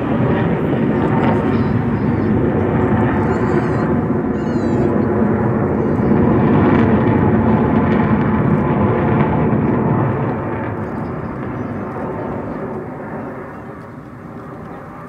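Jet engine roar of a formation of Flanker-family twin-engine fighters flying overhead. It is loud and steady, then fades from about ten seconds in as the formation draws away.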